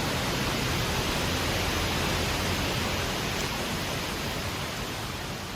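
Heavy wind storm: a steady, dense rushing noise that begins to fade out slowly past the middle.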